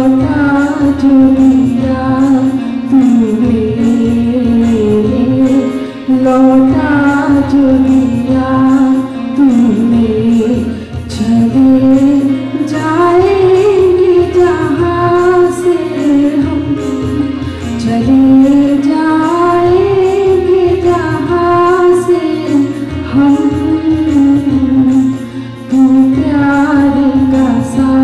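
A Hindi prayer sung by a woman at a microphone with a group of children, in slow phrases of long held notes over a steady musical backing.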